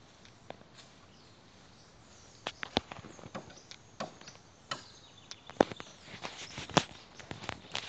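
Footsteps crunching through dry leaf litter close to the microphone: after a quiet couple of seconds, an irregular run of sharp crackles and clicks, some of them loud.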